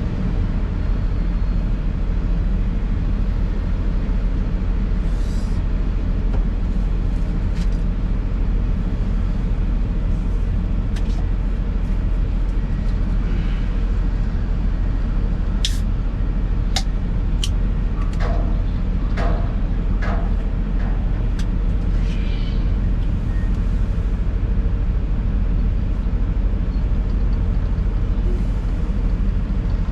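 Excavator's diesel engine running steadily under work, heard from inside the cab. From about halfway through come several sharp knocks and clanks.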